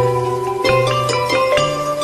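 Background music: plucked and mallet-like instrumental notes over a bass line that changes about every second.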